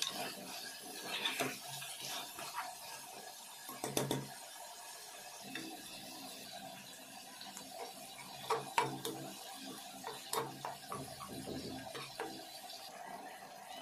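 A spatula stirring and scraping food in a cooking pan, with several sharp knocks against the pan, the loudest about nine seconds in.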